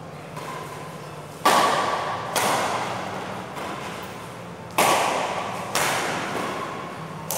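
Badminton rackets striking the shuttlecock during a rally: four sharp hits, two about a second apart, a pause, then two more, each ringing on in the echo of a large hall.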